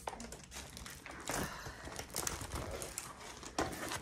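Crinkling and rustling of a diamond painting canvas and plastic packaging being handled, with a few sharper knocks.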